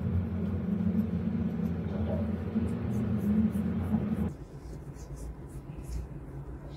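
Stylus tapping and stroking on the glass screen of a Huion Kamvas Pro 19 pen display, a run of faint short ticks. A steady low hum sits under the first four seconds or so and stops suddenly.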